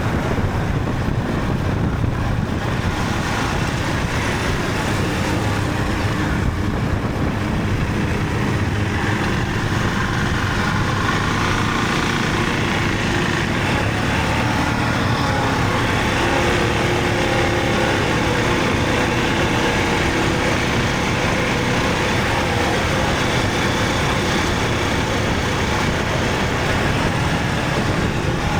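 Motorcycle being ridden at a steady speed: wind rushing over the microphone, with the engine's even drone underneath.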